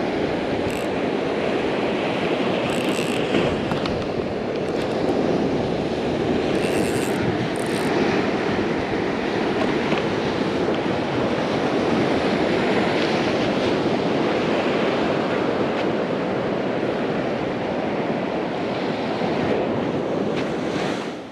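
Steady rush of ocean surf washing onto the beach, mixed with wind noise on the microphone.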